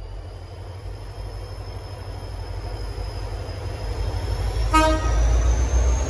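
Diesel-electric freight locomotive G521 pulling away, its engine rumble growing louder as it draws near, with a high whine rising slowly in pitch. Near the end comes one brief toot of its Nathan P5 horn.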